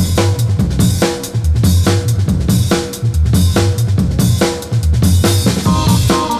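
Background music with a steady drum-kit beat of kick, snare and hi-hat over a bass line. A higher melody line comes in near the end.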